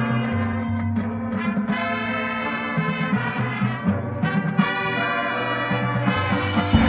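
Marching band brass playing held chords over a low bass line that moves step by step, with the front ensemble underneath.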